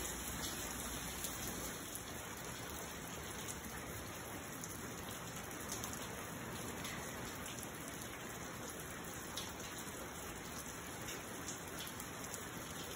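Steady rain falling: an even hiss with scattered light ticks of drops.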